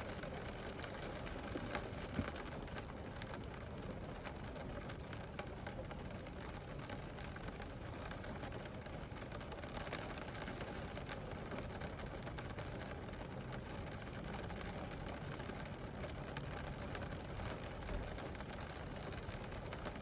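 Steady rain falling, an even wash of noise flecked with the ticks of individual drops, and a couple of slightly louder drop hits.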